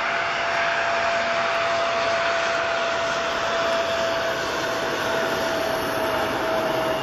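Jet engines of a twin-engine airliner on final approach with its landing gear down, a steady roar with a thin, even whine over it.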